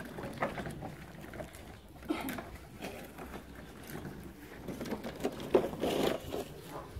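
Small plastic toy wheelbarrow loaded with a watermelon pushed over bumpy dirt and grass: the plastic wheel rumbles and the load knocks and rattles in irregular clicks.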